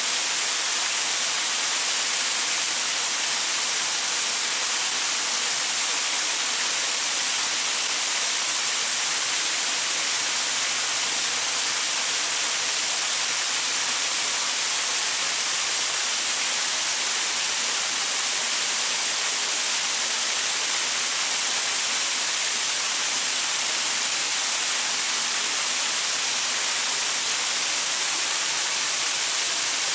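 Waterfall splashing steadily over rocks: an even, unbroken hiss weighted toward the high end, with little low rumble.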